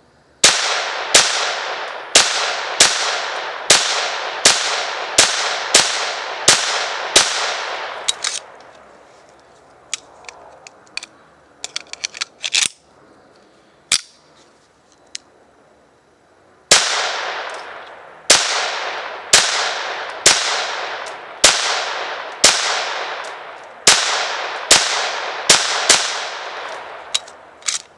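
Ruger Mark III .22 LR semi-automatic pistol firing, about ten sharp shots at a steady pace, each with a short echoing tail. A lull with small handling clicks follows, then about ten more shots.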